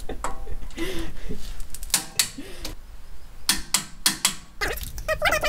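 Click-type torque wrench set to 115 Nm, clicking on the front wheel hub bolts as they reach torque: several sharp metallic clicks in small clusters.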